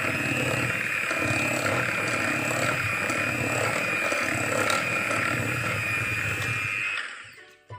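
Electric hand mixer running steadily, its twin beaters whirring through a butter-and-flour mixture in a glass bowl, with a steady high whine. It is switched off about seven seconds in and runs down quickly.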